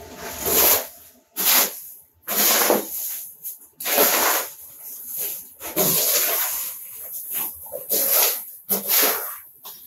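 A shovel scraping and scooping demolition rubble off the floor, about ten rough scraping strokes at roughly one a second.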